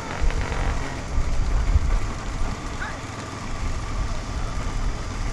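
A low, uneven rumble of a vehicle running, with faint distant voices calling.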